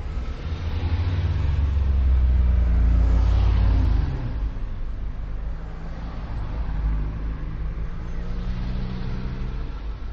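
A motor vehicle's engine rumbling low and steady with a hum over it. It is loudest for the first four seconds, then drops suddenly to a lower level.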